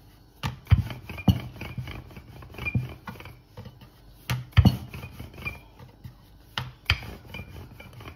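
Paratha dough being rolled out with a wooden rolling pin on a round wooden chopping board: soft rubbing broken by irregular wooden knocks, the sharpest about a second in and again about four and a half and seven seconds in.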